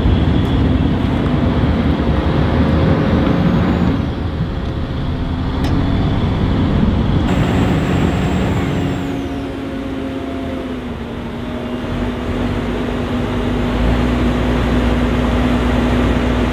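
A small log-towing tugboat's engine running steadily, its pitch shifting as the throttle changes. It eases off around the middle, then settles into a heavier low rumble for the last few seconds.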